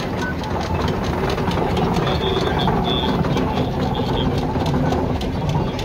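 Steam traction engine driving slowly past at close range: a steady mechanical running from its engine and motion, with many small rapid knocks.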